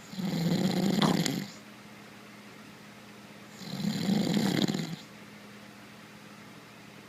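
A sleeping man snoring: two long, rough snores on the in-breath, one every three and a half seconds or so.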